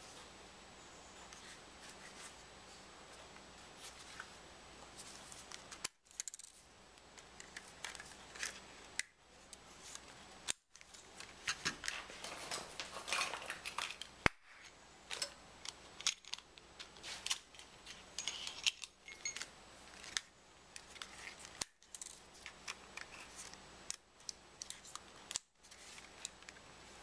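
Small clicks, taps and rubbing of a compact digital camera being handled, turned over and set down on a table, in irregular clusters.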